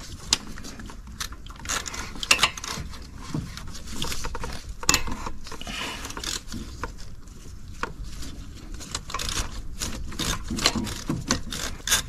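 Ratchet wrench clicking in irregular runs as the AC compressor's mounting bolts are loosened, with scattered sharp metal knocks of the tool.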